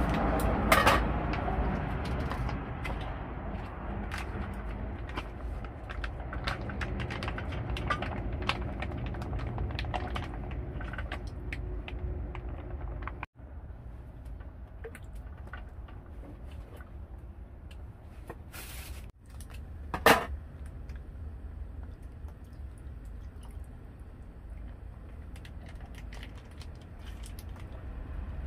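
Plastic vacuum-pack bags crinkling and rustling as they are cut open and handled, with small clicks and taps of food going into a grill pan, over a steady low rumble. One sharp knock about two-thirds through stands out as the loudest sound.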